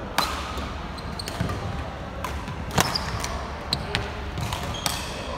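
Badminton rally: three sharp racket hits on the shuttlecock, roughly two and a half seconds apart, with fainter taps and brief shoe squeaks on the wooden court between them.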